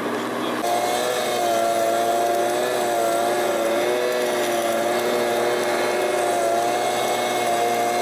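Handheld petrol leaf vacuum running steadily at high speed, its engine drone wavering slightly in pitch, as it sucks plastic pellets up from beach sand.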